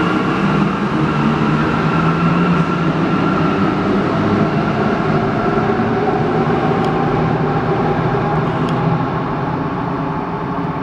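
Alstom NS-16 rubber-tyred metro train pulling away and accelerating, its running gear and motors making a steady hum with a tone that slowly rises in pitch. It fades gradually near the end as the train moves off into the tunnel.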